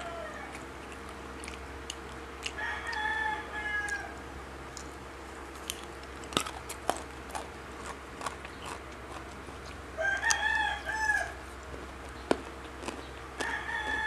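A rooster crowing three times, each crow about a second and a half long, with scattered sharp clicks and taps from handling food.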